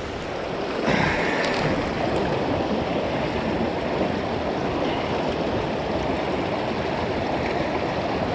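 Steady rush of shallow river current flowing past, louder for a moment about a second in.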